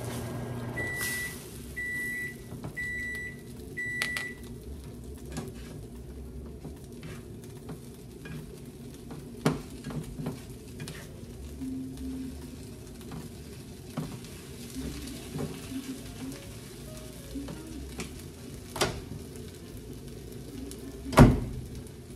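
Four short electronic beeps, about one a second, from a kitchen timer or appliance, over pancakes and scrambled eggs sizzling faintly in frying pans. A slotted spatula clinks and scrapes on the nonstick pans now and then, with one sharp clack near the end, the loudest sound.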